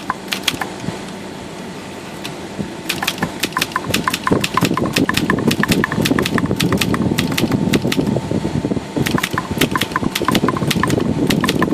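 Montgomery Ward Brother manual typewriter being typed on: type bars striking the platen, a few strokes at first, then a fast run of keystrokes from about three seconds in. This is a test of the freshly flushed type-bar segment for keys that stick or pull up more than one type bar.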